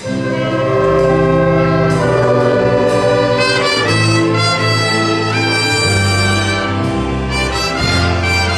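Amateur orchestra playing, with brass to the fore: held chords that change every second or so.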